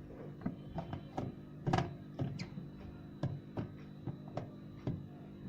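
Plastic parts of a twin-tub washing machine's spin dryer knocking and clicking irregularly as they are pushed and hooked into place, over a steady low hum.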